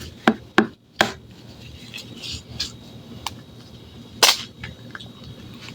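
An egg being cracked: short sharp taps of the shell against a hard edge, three quick ones in the first second and a louder knock about four seconds in.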